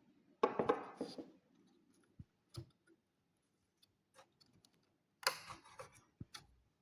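Clicks and short scraping rattles of hands and tools working on plastic computer parts. A cluster comes about half a second in, a single click near two and a half seconds, and another cluster around five seconds in.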